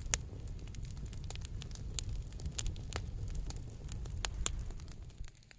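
Wood campfire of large logs crackling, with irregular sharp pops of differing loudness over a low rumble that drops away near the end.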